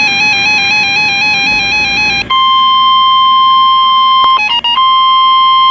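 Weather radio emergency alert: an electronic tone warbling rapidly back and forth between two pitches, then, a little over two seconds in, the steady 1050 Hz NOAA Weather Radio warning tone, broken briefly near the end by another short burst of warbling.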